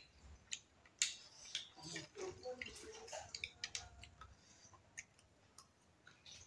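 Metal spoons clicking and scraping against a ceramic plate as food is scooped up: a string of quiet, irregular small clicks.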